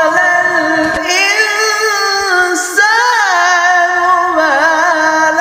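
Background music: a single voice singing a slow, drawn-out melody, with held notes that glide up and down.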